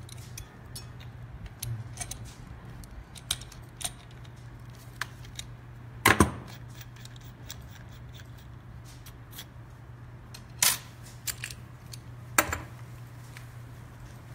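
Steel wrenches clicking and clinking against the collet nut of an ultrasonic milling tool head as it is worked loose or tight, with three louder sharp knocks about six, ten and a half and twelve and a half seconds in.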